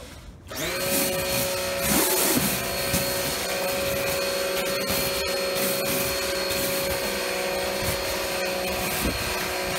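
Bosch AQT 33-11 electric pressure washer starting up about half a second in, then running steadily with a whine. Its water jet sprays inside a Bosch AquaSurf 280 patio cleaner head as it scrubs algae off wet paving slabs.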